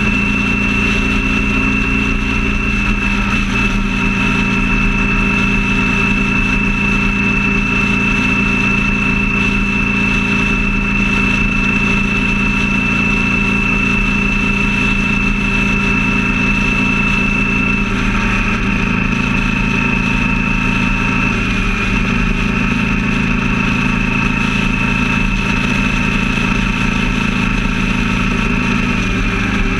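Vehicle engine running steadily at freeway cruising speed, with road noise. Its note shifts slightly a few times.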